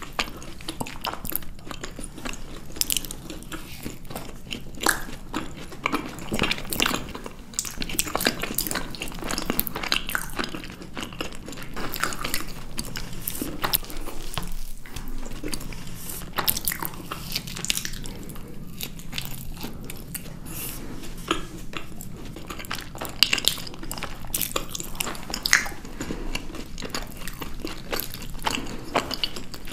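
Close-miked biting and chewing of chocolate desserts and tiramisu, with many irregular sharp crunches and crackles.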